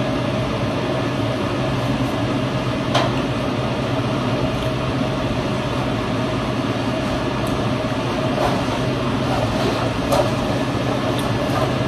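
Air conditioner running with a steady hum. A few sharp clicks stand out over it, the loudest about three seconds in and another near the end.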